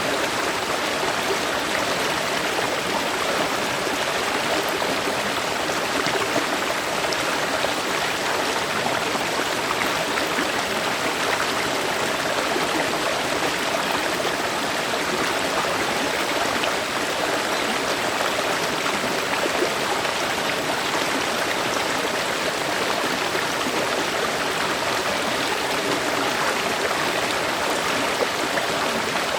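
A river or stream flowing over rocks, a steady rushing and babbling wash of water with no breaks.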